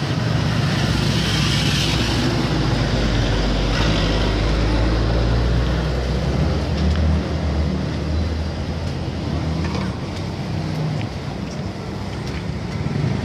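A motor vehicle's engine running close by, its low hum shifting in pitch about seven seconds in, over steady street traffic noise.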